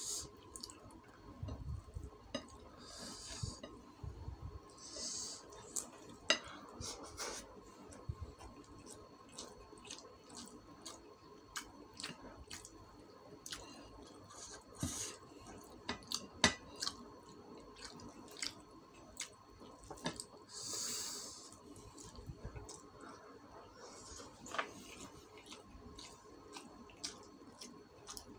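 Close-up eating sounds from rice and chicken eaten by hand: wet chewing and lip smacks with many scattered small clicks, fingers working food on a ceramic plate, and now and then a brief hiss.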